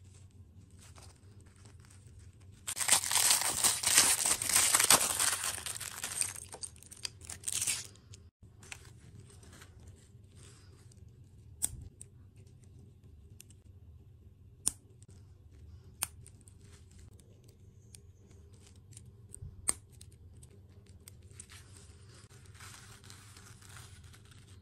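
A thin plastic wrapper torn and crinkled open for about five seconds, followed by scattered sharp clicks of small plastic toy parts being snapped together. Near the end comes a soft rustling scrape as the toy is pushed over artificial grass.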